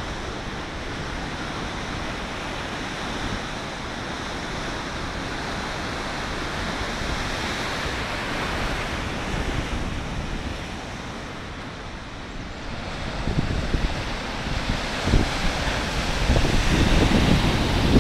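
Rough winter sea at high tide: surf breaking on rock armour and washing against a stone sea wall, a steady wash of noise that grows louder in the last few seconds, with wind buffeting the microphone.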